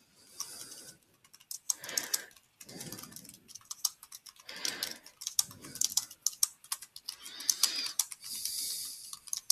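Typing on a computer keyboard: an irregular run of keystroke clicks.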